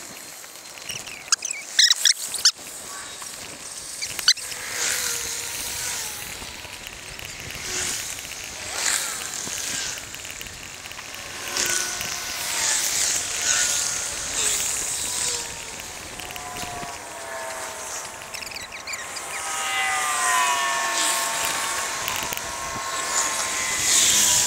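Riding noise of a bicycle on a snowy, slushy path: a steady hiss of wind and tyres that swells and fades in gusts, with a few sharp knocks near the start. About two-thirds of the way in comes a wavering, whistle-like tone that lasts several seconds.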